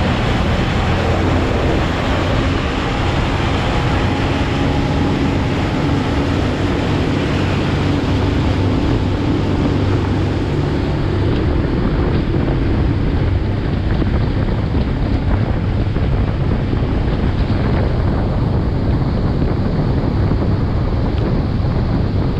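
Motorboat running steadily at speed, its engine drone mixed with water rushing past the hull and wind buffeting the microphone.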